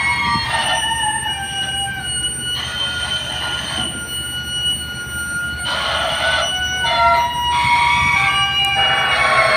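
Shrill metal squealing, several high tones that hold and then switch abruptly every second or two over a low rumble, as the repaired ship is lowered down the slipway.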